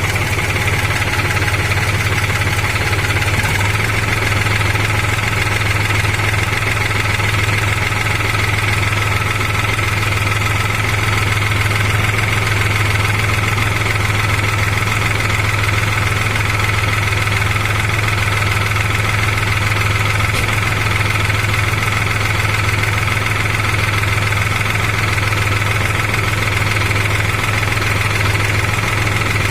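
New Holland TT4.55 tractor's diesel engine running steadily at idle, with an even low drone and a steady higher whir above it.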